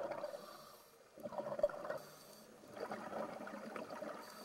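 Underwater bubbling and gurgling in bursts: a short one about a second in and a longer one near three seconds in.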